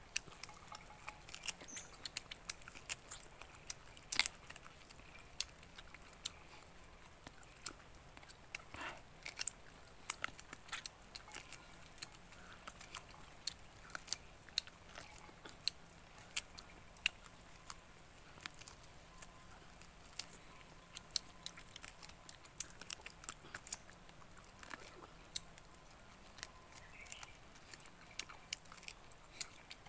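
Close-up eating sounds of roast chicken being bitten and chewed by hand, heard as many short, sharp smacking clicks.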